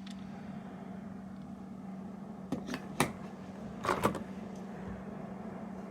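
A steady low electric hum with a few sharp clicks: three separate clicks, about half a second and then a second apart, the last a short rattle.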